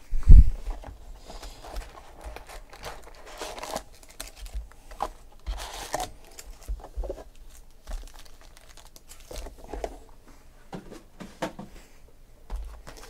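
A heavy thump just after the start, then foil-wrapped trading card packs crinkling and rustling in short irregular bursts as they are grabbed out of an opened cardboard hobby box and stacked.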